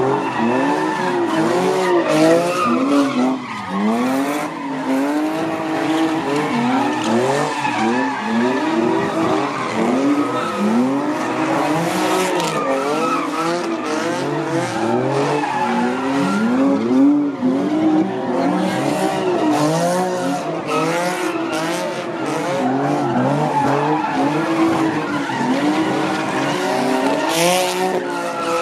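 A car doing donuts: its engine revving up and down over and over, about once a second, with the tyres spinning and screeching.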